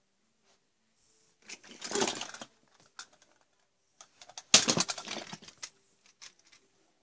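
Handling noise: rustling and clattering in two bursts, about two seconds in and again about four and a half seconds in, as toys and the camera are moved about close to the microphone.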